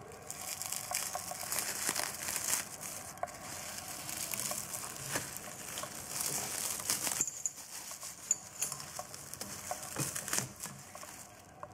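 Old plastic cover being pulled off a pocket bike's carburettor: crinkling and crackling with scattered clicks, busiest for the first seven seconds or so, then sparser.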